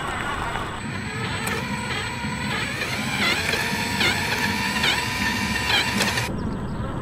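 Remote-control truck driving, a steady rough mechanical noise, with short chirps repeating about once a second in the second half.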